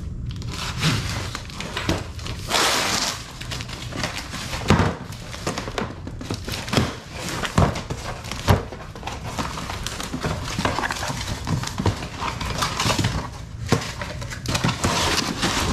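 A cardboard shipping box being cut open with a utility knife and handled: scraping, rasping and tearing of cardboard, with a string of knocks and thumps as the box is shifted and tipped on a concrete floor.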